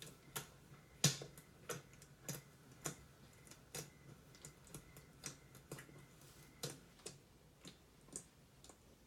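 Homemade glue slime being handled, giving off soft irregular clicks and pops about twice a second, the loudest about a second in.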